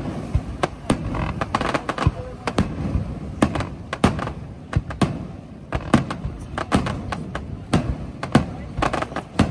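Fireworks display: aerial shells bursting in a rapid, irregular barrage of sharp bangs, several a second.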